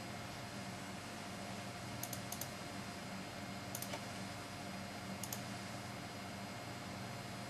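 Computer mouse clicking in three quick groups, double-clicks about a second and a half apart, over a steady low hum and hiss.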